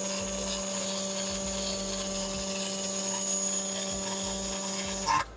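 Miller Copilot welding cobot's MIG welding arc: a steady crackling hiss over a constant hum. The arc cuts off about five seconds in with a short, loud pop.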